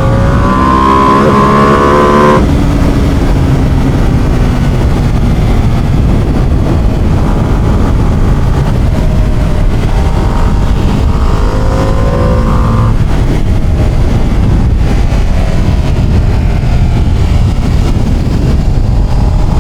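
Ducati Panigale sport bike's engine and exhaust under way, revving up with its pitch rising and dropping off abruptly about two seconds in at a gear change, then pulling up in pitch again twice more later on.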